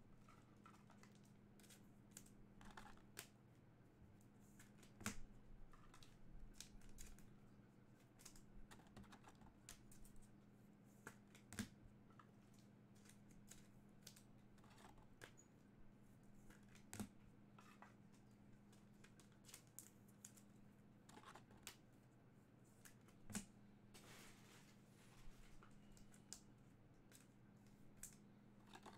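Faint, irregular clicks and taps of a sealed trading-card hobby box and its packs being handled and opened, with a few louder knocks and a short rustle about five-sixths of the way through. A low, steady hum runs underneath.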